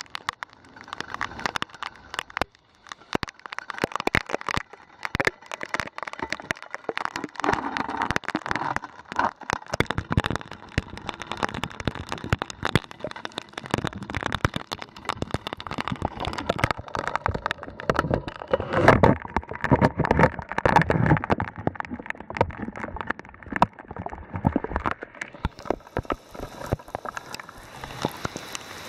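Heavy rain falling, heard as dense, irregular taps of drops landing on and close around the camera over a steady hiss of rain. Near the end the hiss of the downpour grows fuller.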